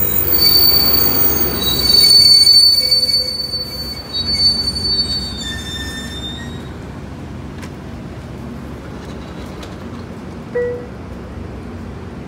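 Amtrak California bilevel passenger train rolling slowly past, its running gear giving a high-pitched metallic squeal of several steady tones over a rumble for the first six seconds or so. The squeal then fades to a low rolling rumble as the last car goes by, with one short beep about ten seconds in.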